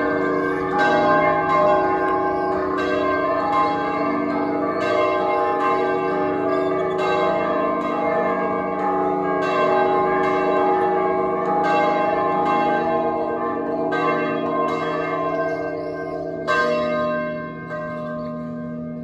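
Colima Cathedral's tower bells ringing a festive peal (repique): several bells struck again and again, their tones overlapping and hanging on between strokes that come about once a second. The ringing thins out near the end.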